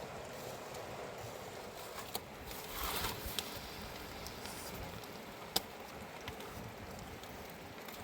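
Mountain river water running with a steady rush, broken by a few sharp clicks, the loudest about five and a half seconds in.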